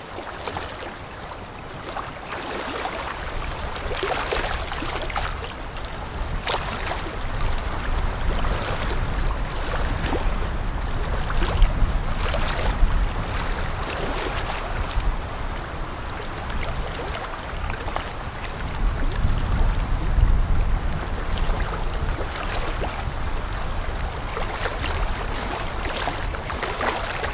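Outdoor river ambience: wind rushing on the microphone over the wash of river water, with a low rumble that swells and fades, strongest about two-thirds of the way through.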